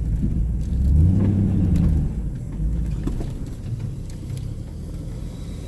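Hummer H2's V8 engine revving under load on a snowy climb. It swells and rises about a second in, then eases back to a lower steady run while the tires spin without getting up the hill. The driver suspects his locker isn't working.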